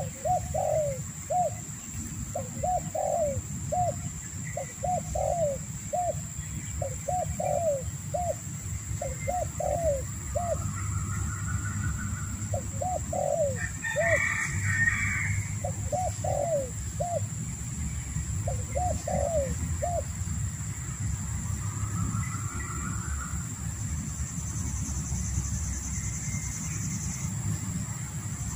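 Spotted dove cooing, a repeated phrase of two or three rolling notes given about eight times, every two seconds or so, then stopping about two-thirds of the way through. A steady high whine and a low rumble run underneath.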